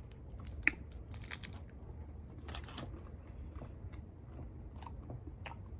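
Close-up eating sounds: a person biting and chewing food, with scattered short crunchy crackles and one sharper click about two-thirds of a second in.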